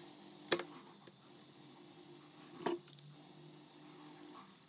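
Two short sharp clicks of small metal parts being handled and knocked against a wooden base, about half a second in and again near the three-second mark, over a faint steady hum.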